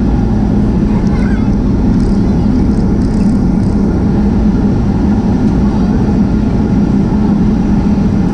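Steady, loud cabin noise inside a Boeing 737-800 rolling along the runway after landing: its CFM56-7B engines and the rush of the airframe, with a steady low hum underneath.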